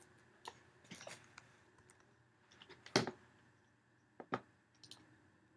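Faint, scattered clicks from operating a computer, about five in all, the loudest about three seconds in.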